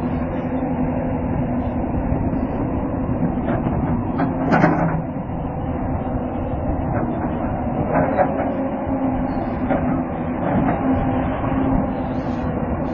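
A steady, low machine hum with a few knocks or clanks, the loudest about four and a half seconds in and another around eight seconds.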